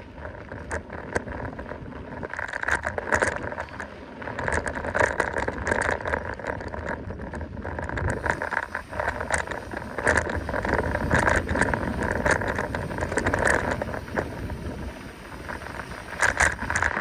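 Mountain bike rolling over a rough trail: a steady rushing tyre noise that swells and fades, with frequent rattles and clicks from the bike over bumps.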